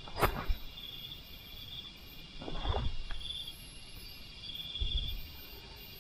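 Night insects, crickets among them, chirring steadily with stretches of pulsed trilling. A sharp knock comes about a quarter second in, and dull low thuds follow near the middle and again near the end.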